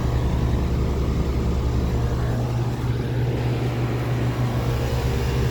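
1999 3.5-ton Rheem Classic heat pump's outdoor unit running in heat mode: a steady low hum from the compressor and condenser fan.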